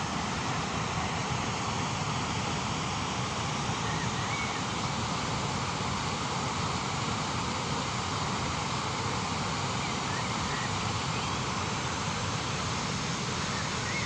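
Steady rushing of a waterfall: an even, unbroken roar of falling water.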